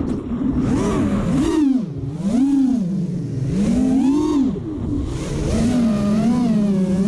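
5-inch FPV racing quadcopter's brushless motors and propellers, heard from its onboard camera: a whine that swoops up and down in pitch every second or so as the throttle is worked through rolls and dives, over rushing wind noise. It settles to a steadier pitch near the end.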